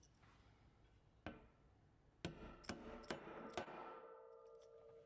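Faint taps as an end cap is fitted onto the axle of a NONPLUS mountain-bike hub: one tap, then four quicker ones about half a second apart, the last leaving a ringing tone for over a second.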